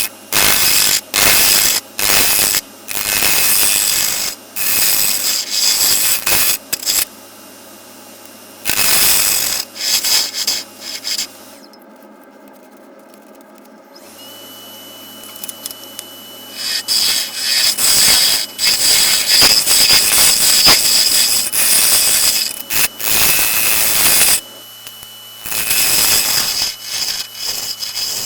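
Wood lathe spinning a maple bowl blank while a turning gouge cuts it in repeated short passes, each pass a loud burst of rasping shavings. About twelve seconds in, the lathe motor stops briefly, then starts again with a steady high whine.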